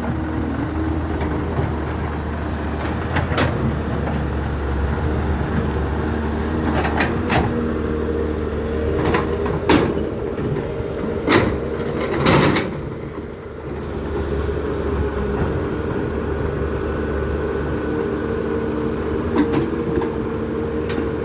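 Excavator's diesel engine running steadily, with sharp knocks at uneven intervals as it digs, the loudest cluster around the middle.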